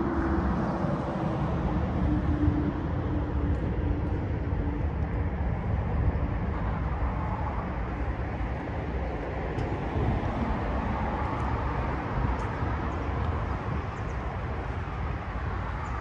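Steady hum of road traffic, with one vehicle's droning tone fading away over the first five seconds.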